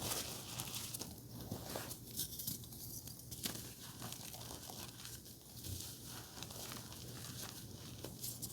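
Blue reformed gym chalk being crushed, crumbling with a dry crackling crunch and many small clicks.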